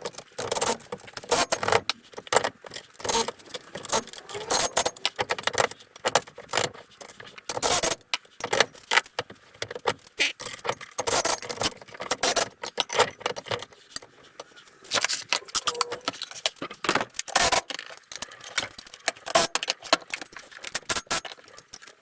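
Irregular metallic clinking and jangling of hand tools and steel bolts: a socket wrench working the four 12 mm bolts on a car's front hub and brake assembly.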